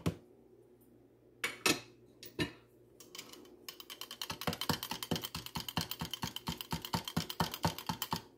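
A metal spoon stirring sugar and yeast into warm milk in a plastic measuring jug, ticking rapidly against the jug's sides at about five strokes a second from about three seconds in. A few separate taps come before the stirring.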